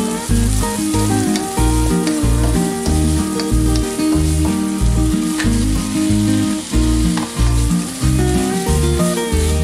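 Background music with a steady beat, over sambal chili paste sizzling in hot oil in a stainless steel frying pan as a spatula stirs and scrapes it.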